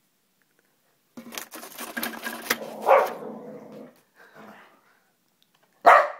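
Formosan mountain dog barking as paper is loaded into a printer. Paper rustles and clicks for a few seconds with a bark about three seconds in, then one loud, sharp bark near the end.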